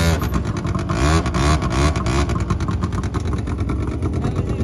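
Small quad bike (ATV) engines running at idle, with short throttle blips about a second in and again near two seconds.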